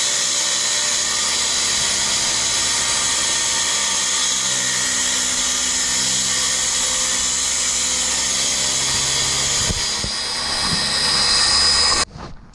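Corded circular saw cutting a sheet of plywood, a loud steady whine. It grows a little louder about ten seconds in, then stops abruptly near the end.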